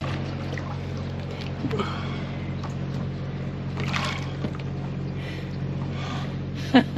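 Steady low engine hum with a short louder sound near the end and faint voices now and then.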